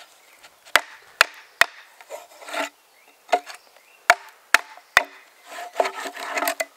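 Hand-forged T-shaped axe, wrought iron with a steel bit, hewing a cleaved section of ash: about seven sharp chops, in two quick runs of three with one between. Longer rasping, splitting sounds as the wood gives, the longest near the end.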